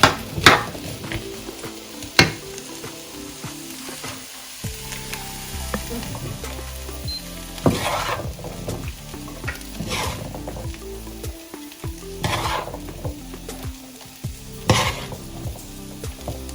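A spoon stirring and scraping chickpeas in a hot pan of oil, with a steady sizzle underneath and a sharp scrape about every two seconds.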